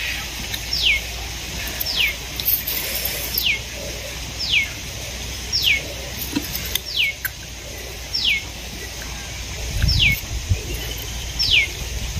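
A bird repeating one short downward-sliding whistle, about nine times, roughly once every second and a quarter. A low rumble comes in near the end.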